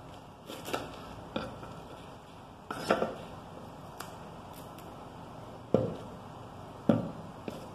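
Chef's knife and a white onion knocking and tapping on a wooden cutting board as the onion is halved and handled: scattered sharp taps, with two louder knocks near the end.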